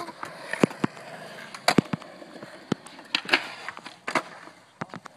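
Skateboard rolling on smooth concrete, its wheels making a steady rolling hiss broken by about nine sharp clacks and knocks from the board.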